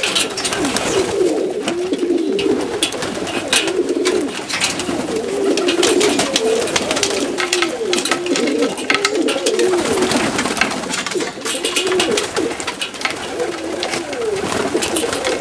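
A flock of Macedonian Donek pigeons cooing continuously, many birds' warbling coos overlapping, with scattered sharp clicks.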